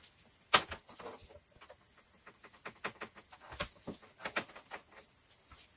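Rubber hose being handled and pushed onto the oil-extraction plug on top of the engine: a sharp click about half a second in, then scattered small clicks, taps and rubbing.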